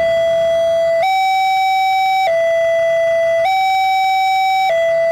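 Railway level-crossing warning alarm sounding a steady electronic two-tone, a lower and a higher note alternating about every second and a quarter. It signals a train approaching with the barriers down.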